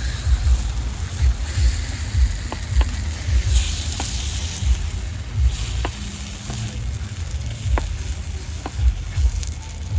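Batter or food sizzling in a hot pan, with scattered sharp pops and crackles, over a loud, uneven low rumble.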